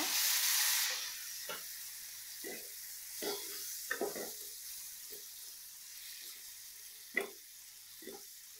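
Chopped tomatoes frying in hot oil and masala in a kadai. The sizzle is loud as they first go in and eases about a second in to a steady sizzle, with the occasional scrape of stirring.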